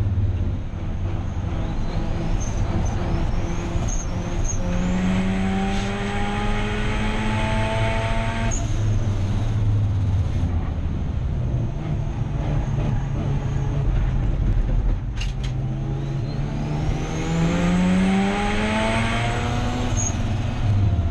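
Turbocharged 13B rotary engine of a Mazda RX-8 race car pulling hard twice, its pitch rising through each pull with a high whistle climbing alongside. The first pull cuts off abruptly about eight seconds in, and a single sharp click comes about fifteen seconds in.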